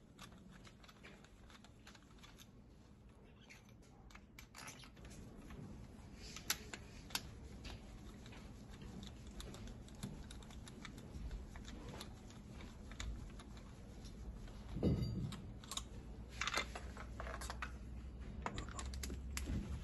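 Faint scattered clicks and taps of a compression tester's hose fitting being unscrewed from one cylinder of a diesel engine and handled by gloved hands, with a duller thump about fifteen seconds in.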